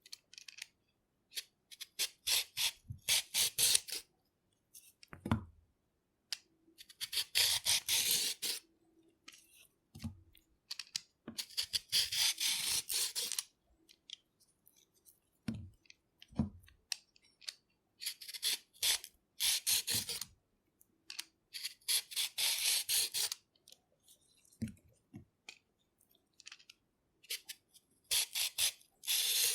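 A hand peeler scraping down a carrot in quick runs of strokes, several strokes a second. The runs last a second or two each and come six times, with pauses between them. Brief soft knocks fall in some of the pauses.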